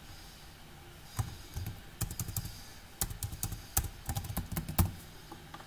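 Computer keyboard keys being pressed in an irregular run of clicks, starting about a second in and stopping shortly before the end, as a word is backspaced out and a new one typed.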